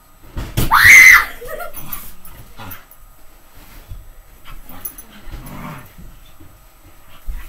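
A dog gives one loud, high bark that rises and falls in pitch, about half a second in. Quieter noises follow, and a short knock comes near the end.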